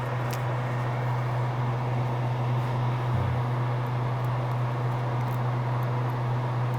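A workbench electric fan running steadily with a low hum and an even whoosh of air, with a few faint small clicks of handling over it.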